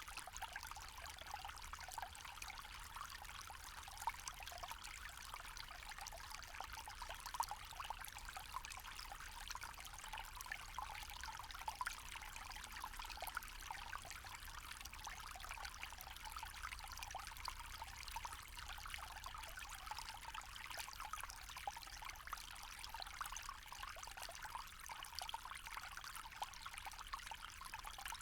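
Small forest stream trickling and splashing steadily over stones, a dense patter of small splashes.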